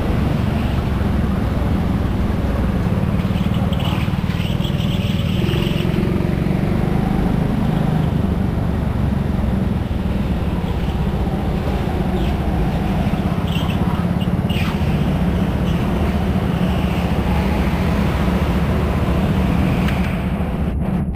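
Indoor racing go-kart running at steady speed, a loud, even low drone with no changes in pitch.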